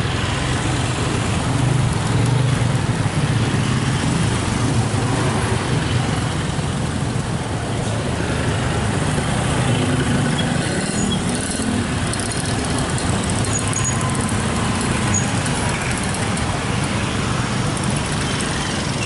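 Traffic noise from a jammed road full of motorcycles and cars crawling along: engines running with a steady low hum.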